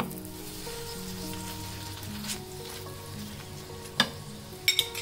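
Ghee sizzling under a kuttu paratha frying on a nonstick pan, while a steel spoon scrapes and spreads the ghee. The spoon clinks against the pan once about four seconds in and twice more near the end.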